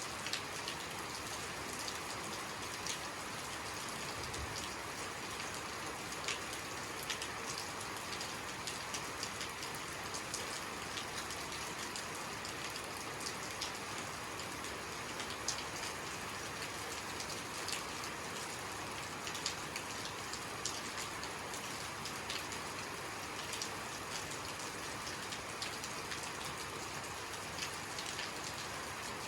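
Steady rainfall, an even hiss with many separate drops ticking on a hard surface.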